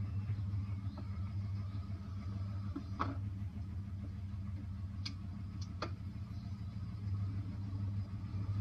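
Vehicle engine idling: a steady low hum, with a few faint clicks about three, five and six seconds in.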